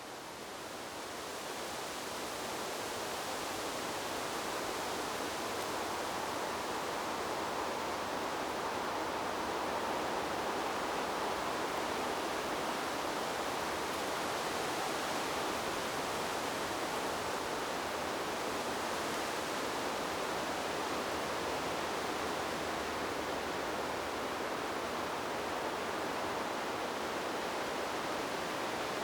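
Wind blowing through forest trees: a steady rushing of leaves and branches that swells over the first couple of seconds and then holds even.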